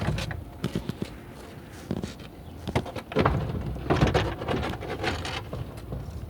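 Irregular knocks, scrapes and rustling, like objects being handled or moved, busiest in the second half.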